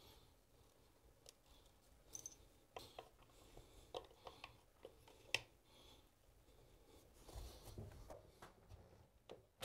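Near silence with faint, scattered clicks and taps as brass closet bolts are slid into the slots of a PVC toilet flange.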